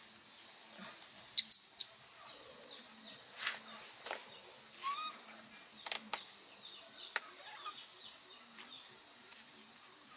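Quiet crinkling and rustling of a disposable diaper being handled on a baby monkey, with a quick run of three sharp snaps about a second and a half in and a few lighter clicks after. A short rising squeak from the baby monkey comes around the middle.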